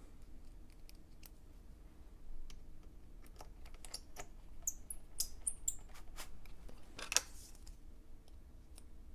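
Light scattered clicks and ticks of a small precision screwdriver and a tiny screw being put back into a MacBook Air, with a few brief high squeaks and one sharper click about seven seconds in.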